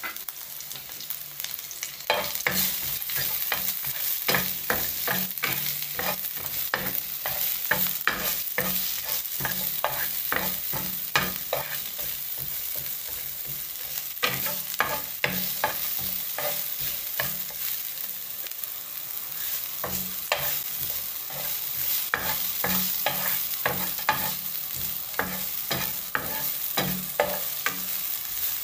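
Sliced red onion and garlic sizzling in oil in a non-stick frying pan while a wooden spoon stirs them, scraping and tapping against the pan again and again. The sizzle gets louder about two seconds in.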